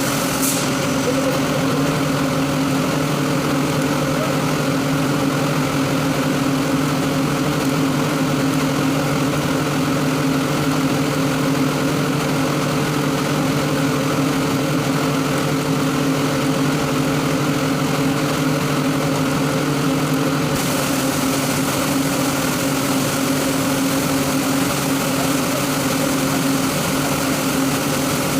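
Industrial rotary screw air compressor running with a steady hum and hiss. The hiss gets a little stronger about two-thirds of the way through.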